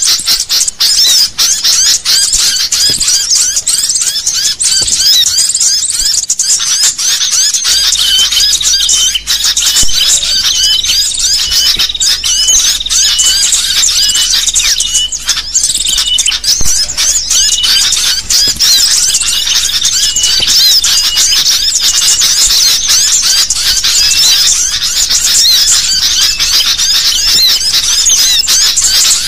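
Bird-luring recording of sooty-headed bulbuls (kutilang) calling in an agitated, noisy chorus: many overlapping chirps and short whistles without a break.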